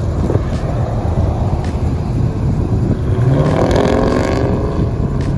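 A car engine running with a loud low rumble. About three seconds in it revs up in rising pitch, then drops back about a second and a half later.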